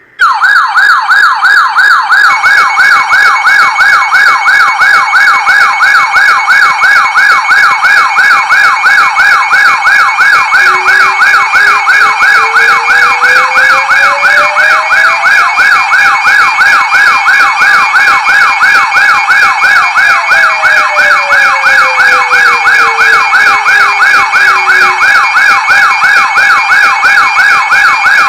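Weather alert radio alarm sounding for an incoming warning: a loud siren tone warbling fast, about three times a second, joined about two seconds in by a steady high-pitched tone. A faint tone slowly rises and falls again behind it in the middle.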